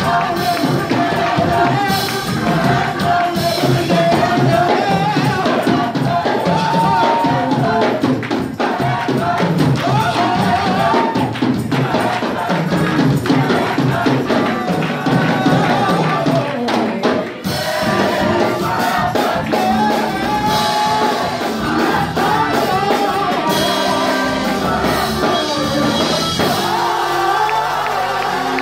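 Live gospel choir singing with a lead vocalist on a microphone, backed by a drum kit, loud and lively.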